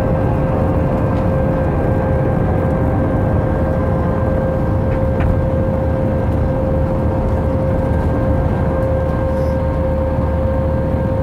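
Jet airliner's engines at takeoff thrust, heard from inside the cabin during the initial climb: a loud, steady rush of noise with a steady whine over it.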